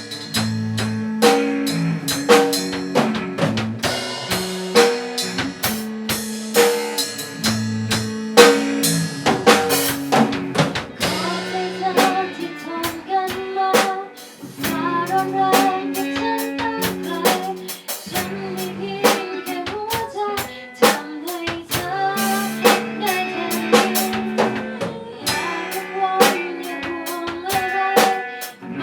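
Music with a steady drum-kit beat, a stepping bass line and a melody above.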